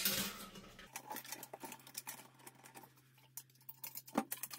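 Thin wire being twisted by hand to fasten a copper still head to a stainless steel pot: a run of small ticks and scratches, with one sharper click about four seconds in.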